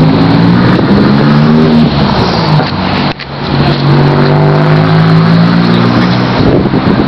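A car engine running loud and close, its pitch slowly climbing as it pulls, dropping out briefly about three seconds in like a gear change, then climbing again.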